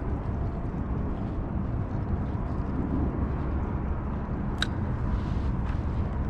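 Steady low rumble of wind buffeting the microphone on open water. One sharp, ringing click comes about four and a half seconds in.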